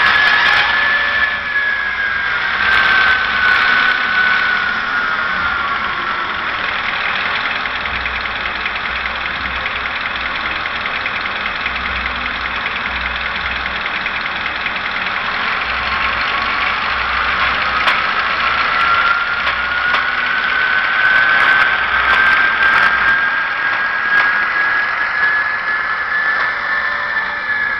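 Recorded diesel engine sound of a Vossloh G2000 locomotive played by an ESU LokSound decoder through the HO-scale model's small speaker. A whining tone falls over the first few seconds as the engine winds down, the engine runs steadily, then the whine rises again from about halfway as it revs up.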